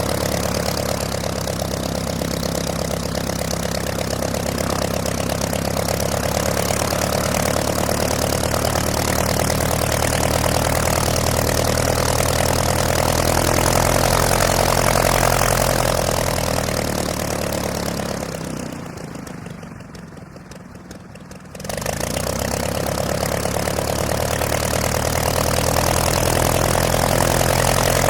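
Propeller plane's piston engine idling steadily, swelling slightly in the middle. About two-thirds through it fades down for roughly three seconds, then comes back suddenly at full level.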